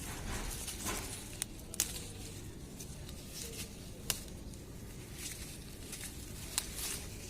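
Malabar nut (basak) leaves being plucked from the plant by hand: scattered sharp snaps of breaking leaf stalks among soft leaf rustling.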